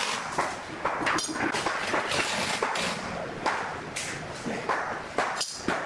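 Cordless drill running in short bursts, about a second in and again near the end, with scattered knocks and taps from handling the pine frame and tool.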